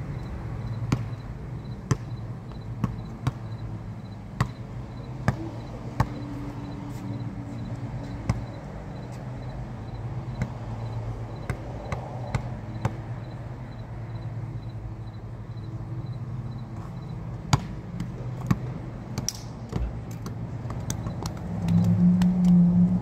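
Basketball bouncing on an outdoor concrete court: a string of sharp, irregularly spaced bounces over a steady low hum of traffic. A louder low hum swells near the end.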